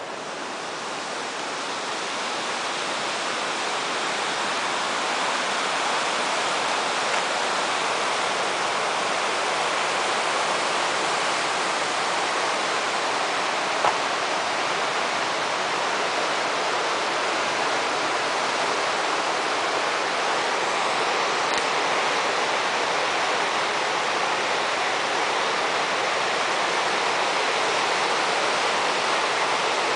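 River whitewater rushing over and around rocks in rapids, a steady rushing noise that grows louder over the first few seconds and then holds even.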